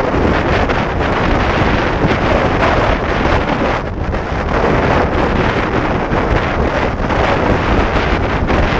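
Heavy wind noise on the microphone of a GoPro Hero4 Session riding on a motorcycle at highway speed: a loud, steady rush that dips briefly twice.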